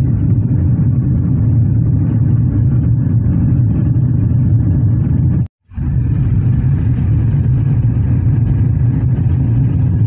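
Steady low rumble of a Mahindra XUV300 driving on a rough road, heard from inside the cabin: engine and tyre noise. It cuts out abruptly for a moment about five and a half seconds in.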